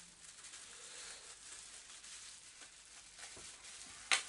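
Faint rustling and crinkling of bubble wrap being handled and unwrapped, with one sharp crackle near the end.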